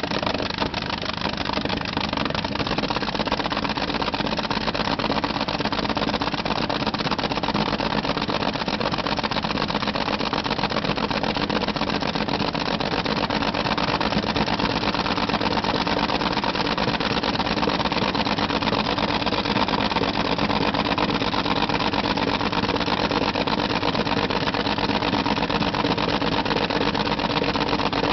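Rover Meteor V12 tank engine in a pulling tractor, running on methanol through open exhaust stacks, held at a steady speed while the tractor stands still.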